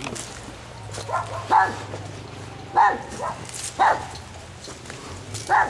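A small dog barking: a string of short, sharp barks about a second apart.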